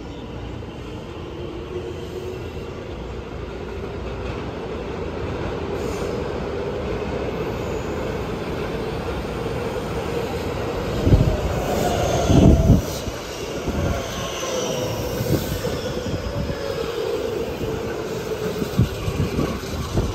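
JR West 225-series electric train pulling into the station, growing louder as it approaches. Its wheels give a run of heavy thumps about eleven to thirteen seconds in, then a high squeal that slides downward as it slows along the platform.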